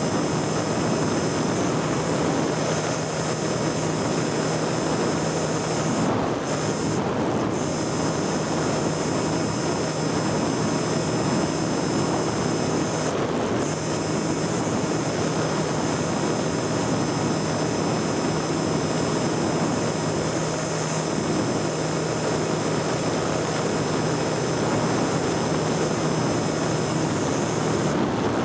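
Steady drone of a small aircraft's engine and propeller with rushing wind noise, heard from a camera carried on board as it flies and banks.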